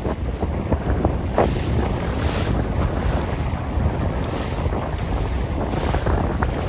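Wind buffeting the microphone in a steady low rumble, over choppy water slapping and splashing, with a few sharp splashes.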